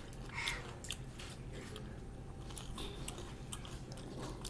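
Close-up eating sounds: people chewing and biting food, with a scatter of short mouth clicks.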